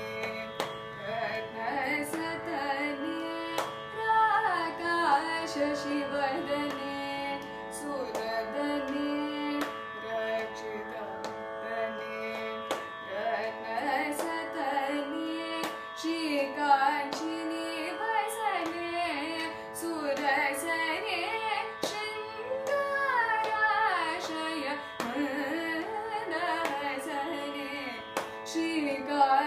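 Solo female voice singing a Carnatic krithi in raga Kamalamanohari, with many sliding ornaments, over the steady drone of an electronic shruti box. Short sharp taps or claps sound through it.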